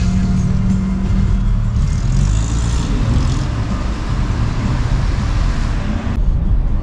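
Toyota Hiace minibus driving on the road, heard from inside the cabin: a steady low engine and road rumble with tyre hiss.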